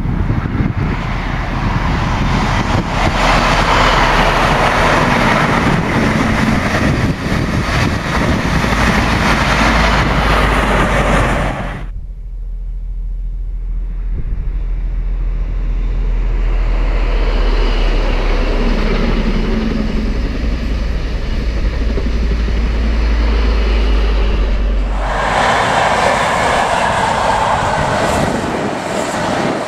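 High Speed Train (Intercity 125) passing, its diesel power cars running, with a steady low wind rumble on the microphone. The sound changes abruptly twice, about 12 and 25 seconds in.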